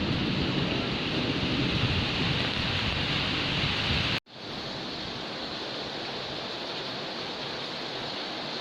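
Heavy rain falling in a steady hiss, with a low thunder rumble under it in the first half. About four seconds in the sound cuts out for an instant, then the rain comes back steady and lighter with no rumble, as at a splice between recordings.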